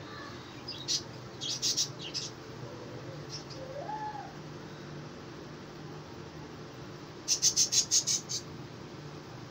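A small bird chirping: a few short, high chirps a second and a half to two seconds in, and a quick run of about seven near the end, over a steady low hum.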